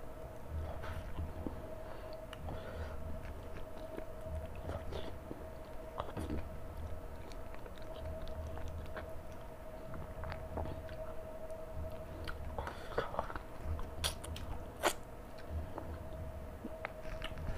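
A person chewing and biting mouthfuls of chicken and rice, close to the microphone, with wet mouth sounds and occasional crunches. A few sharp clicks stand out about fourteen to fifteen seconds in.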